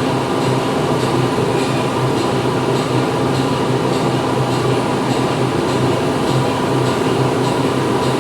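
Factory machinery running steadily: a loud, continuous mechanical hum with a faint, regular high ticking about twice a second.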